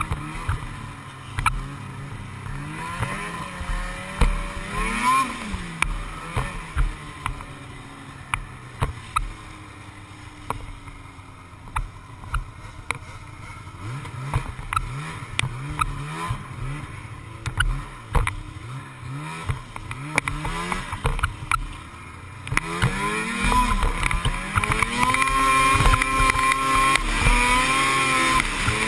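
Snowmobile engine revving up and down as the sled rides across snow. The pitch rises and falls repeatedly, and about two-thirds of the way in the engine gets louder and holds higher revs.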